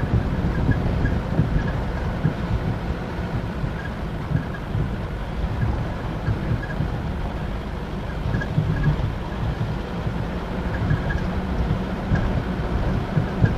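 Mitsubishi Pajero driving off-road up a rough track: a steady low rumble of engine and tyres, mixed with wind buffeting the microphone.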